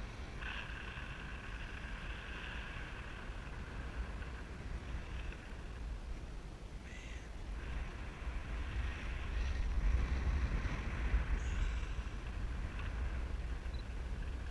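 Wind buffeting a parasailer's harness-mounted camera microphone, a steady low rumble that swells about two-thirds of the way through. A faint steady high whine runs alongside it, fading out around five seconds in and returning later.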